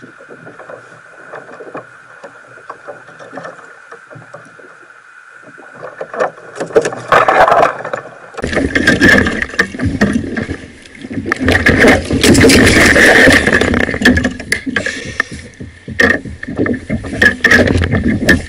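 A large corvina splashing and thrashing against the side of a kayak as it is hauled aboard: loud, irregular splashes and knocks starting about seven seconds in, after a quieter stretch of lapping water with a faint steady hum.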